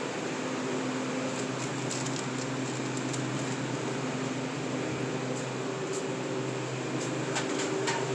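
Walk-in cooler's refrigeration fans and machinery humming steadily with a low drone, with a few faint clicks.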